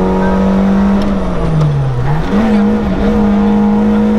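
BMW E36 318ti rally car's four-cylinder engine heard from inside the cabin at high revs. About a second in the revs fall away as the driver lifts, then climb again with a brief dip at a gear change, and hold steady.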